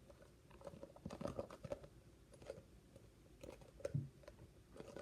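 Faint scattered clicks and crackles of a plastic glue bottle being squeezed and handled to get the last of the glue out, with a few louder knocks about a second in and near the four-second mark.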